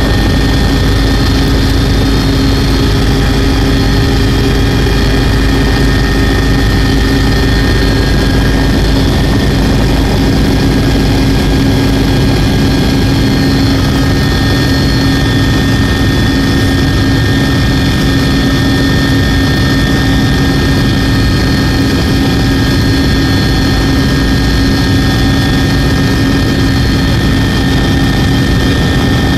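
Helicopter in flight heard from inside the cabin: loud, steady engine and rotor drone, with a constant low hum and fainter steady higher whines.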